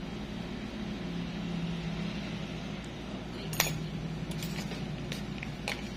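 Steel nail nippers clicking: a few sharp metallic clicks, the loudest about three and a half seconds in, over a steady low hum.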